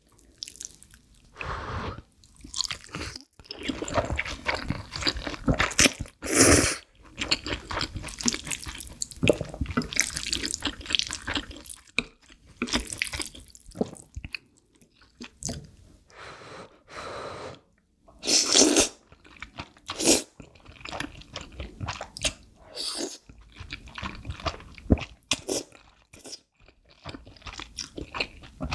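Close-miked eating of Chapagetti black bean noodles: wet slurping, chewing and mouth clicks in quick, uneven succession. A few longer, louder slurps stand out, one about six seconds in and another about two-thirds of the way through.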